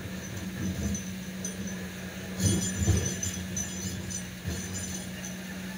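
Kobelco hydraulic excavator's diesel engine running with a steady hum while its bucket digs in the riverbed. About two and a half seconds in, stones clink and knock against the bucket, the loudest moment, with a few duller knocks before and after.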